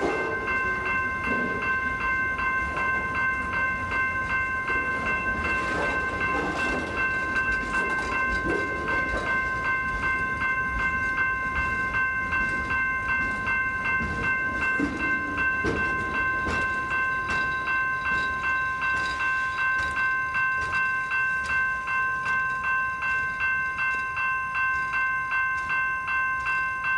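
Amtrak Auto Train autorack cars rolling slowly past on the rails. Over the rolling noise there is a steady ringing of several high tones that pulses about twice a second and stops abruptly at the end.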